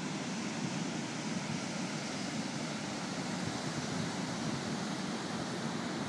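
Steady rush of ocean surf breaking on a choppy, stormy day, mixed with wind.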